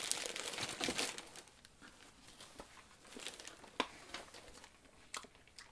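Crinkling rustle of a candy sack being opened and handled, dying away after about a second and a half, then a few faint, scattered clicks.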